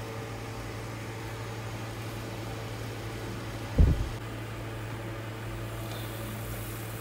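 Steady machine hum with a low hiss, broken once by a single dull thump a little past halfway.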